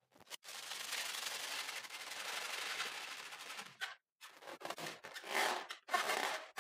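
A steady rustling hiss for about three seconds, then hands squeezing and rubbing a latex balloon filled with foam beads in a series of short rubbing bursts.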